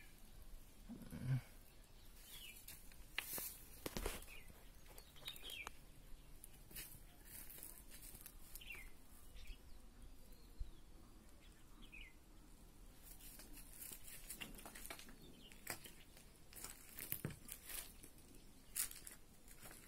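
Faint, scattered short bird chirps, with intermittent crunching and clicks from footsteps on dry leaves and rubble.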